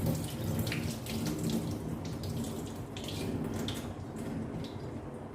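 Kitchen tap running and water splashing in a pot of rice being rinsed at the sink.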